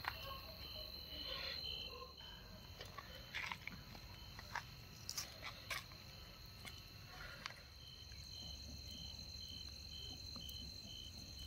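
Crickets chirping steadily: one continuous high trill and another pulsing about twice a second. A few light clicks and knocks come in the middle as metal skewers are laid on the concrete blocks over the charcoal.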